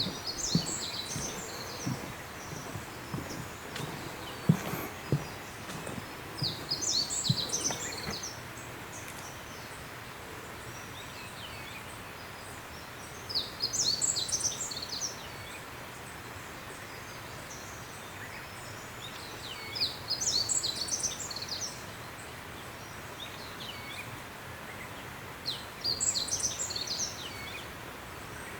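A songbird singing the same short phrase five times, about every six seconds, over steady outdoor background noise. Footsteps on the path sound in the first eight seconds.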